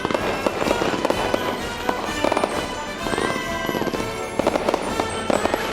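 Fireworks going off: clusters of rapid crackling pops, with a whistling tone rising and falling about three seconds in.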